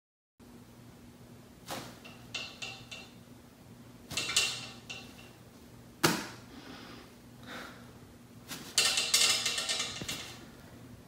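Heavy punching bag on a metal stand being pushed and struck by hand: a few sharp thuds, the loudest about six seconds in, and bursts of clattering from the bag and stand. A steady low hum runs underneath.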